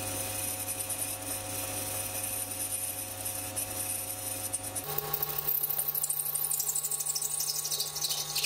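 Sieg C3 mini lathe running and turning down a brass bar, its motor hum steady and a hiss from the cut. About five seconds in, the hum steps up in pitch.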